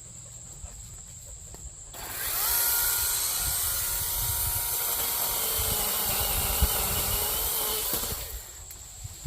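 A handheld power tool spins up with a rising whine about two seconds in, runs steadily for about six seconds, then stops. Crickets chirp in the background.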